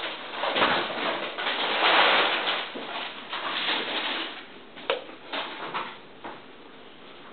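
Cardboard jigsaw puzzle pieces rustling and sliding as they are handled, followed by a few short light clicks about five seconds in.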